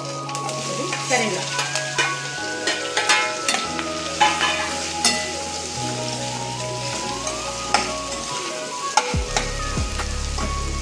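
Sliced bitter gourd frying and sizzling in hot oil in a steel pan. A steel spoon stirs it, clicking and scraping against the pan now and then.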